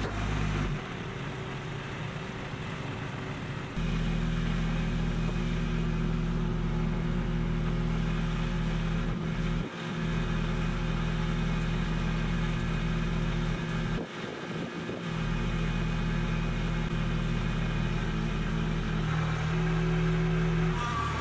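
Kubota B2261 compact tractor's three-cylinder diesel engine running steadily while it digs with the front loader. It gets louder about four seconds in and dips briefly twice, near ten and fifteen seconds.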